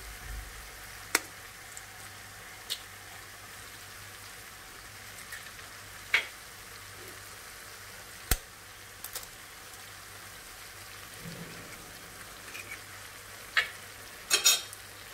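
Tomato and green-chilli mixture sizzling steadily in a frying pan, with a few sharp clicks and taps scattered through and a quick cluster of them near the end.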